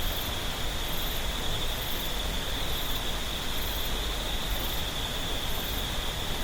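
A clear mountain stream babbling and rushing steadily over rocks. Insects add a steady high drone and a faint, very high chirp about once a second.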